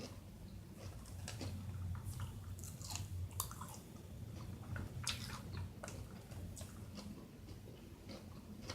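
A person chewing close to the microphone: scattered wet clicks and soft crunches of eating salad with lettuce and pickles, over a low steady hum.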